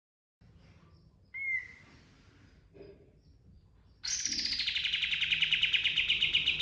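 Kapas tembak songbird singing: one short sharp note, then about four seconds in a long, fast rolling trill of rapid even notes that starts high and settles a little lower.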